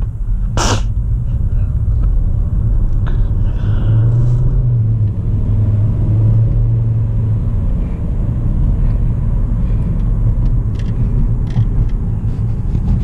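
Steady low rumble of a 2009 Volkswagen Jetta being driven, heard from inside the cabin: engine and road noise, with one brief sharp click less than a second in.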